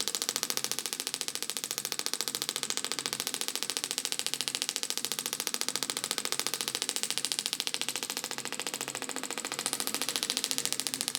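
Shockwave therapy device firing a rapid, even train of pulses, heard as fast mechanical clicking, while its applicator is worked over the lower back. The clicking softens slightly about eight seconds in, then comes back up.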